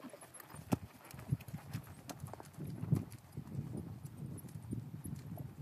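Hoofbeats of a ridden horse on a sand arena surface: a steady run of dull thuds with occasional sharper clicks.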